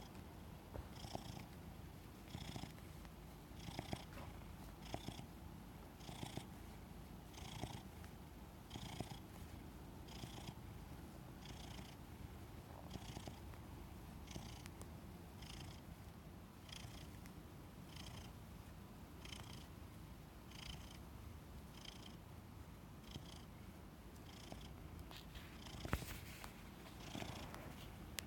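Domestic cat purring steadily while kneading, the purr pulsing about once a second, with one sharp tick near the end.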